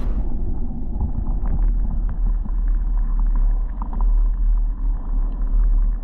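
Shallow lagoon water heard from a camera held under the surface: a muffled low rumble with the high sounds cut off, dotted with small clicks and ticks.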